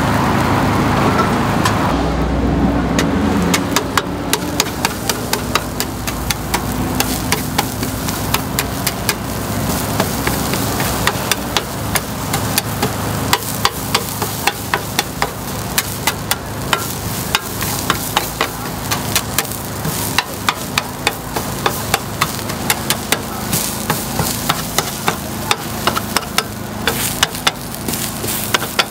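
Takoyaki sizzling in a takoyaki pan, with rapid, irregular clicks of metal picks tapping the pan as the balls are turned, about two or three a second. Street traffic rumbles over the first few seconds.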